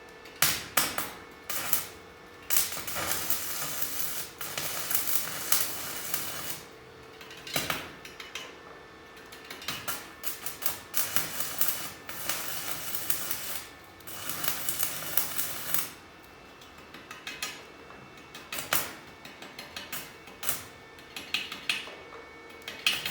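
Stick (electrode) arc welding on a steel-angle frame: crackling runs a few seconds long with short breaks between them, over a faint steady hum. Towards the end there are scattered sharp clicks and taps.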